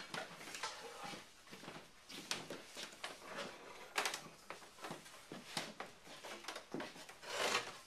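Wooden go bars being sprung and wedged into place on a harpsichord soundboard, giving irregular sharp clicks and knocks of wood on wood.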